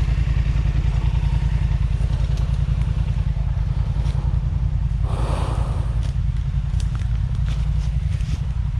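ATV engine idling steadily, with a brief rushing noise about five seconds in and a few light clicks.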